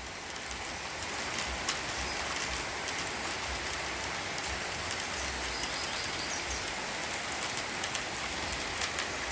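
Heavy rain falling steadily, a constant hiss with scattered sharp taps of drops striking nearby surfaces.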